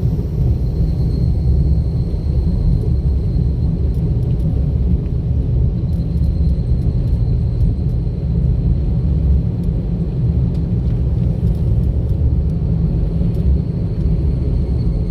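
Steady low rumble of a car driving along a road, road and engine noise picked up by an in-car camera, with no changes in level.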